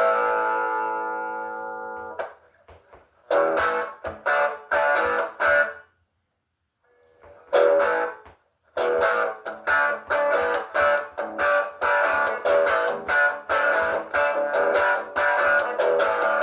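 Guitar being played. A held chord rings and fades until it is damped about two seconds in. A few picked chords follow, then a short silent break, and then a steady rhythm of chords at about two a second.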